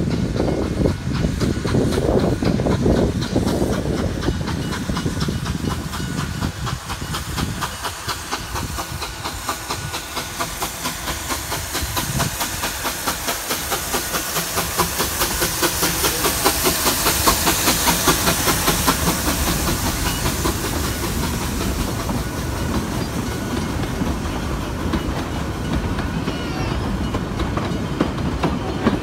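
Narrow-gauge steam locomotive, a Puffing Billy NA-class 2-6-2T tank engine, working towards and past with a steady beat and a hiss of steam, loudest about halfway through as it passes. Its train of carriages then rolls by with a clickety-clack of wheels over the rail joints.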